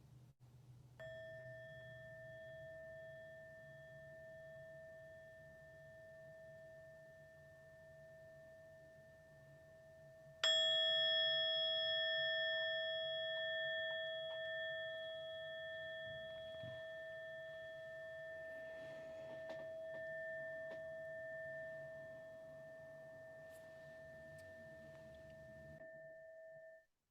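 Meditation bell struck twice to close the sitting: a soft stroke about a second in, then a much louder stroke about ten seconds in, its clear ringing tone fading slowly before stopping abruptly near the end.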